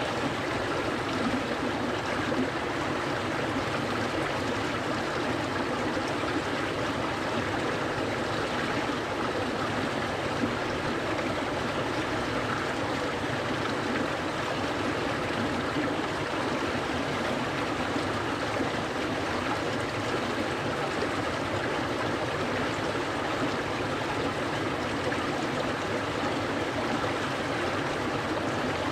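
Stream water flowing steadily, an even, unbroken rush of running water.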